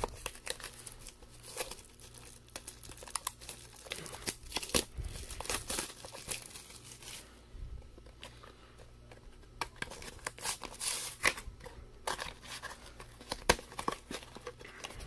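Plastic wrapping on a Magic: The Gathering Double Masters VIP pack crinkling and tearing as it is pulled open by hand, in a run of irregular crackles with a short lull about seven seconds in.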